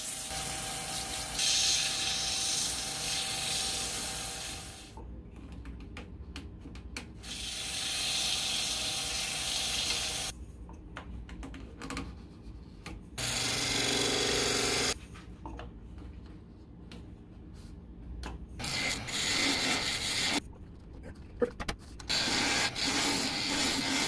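Sandpaper rubbing against the inside of a wooden box lid turning on a lathe, in hissing stretches of a few seconds, to loosen a fit that is a touch snug. Quieter gaps with small clicks and knocks come between the stretches.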